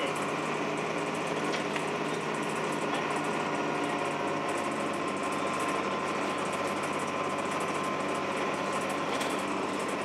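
Interior sound of a 2002 Blue Bird CS transit bus: its Cummins ISC inline-six diesel engine running steadily, heard through the cabin with a steady high whine over it.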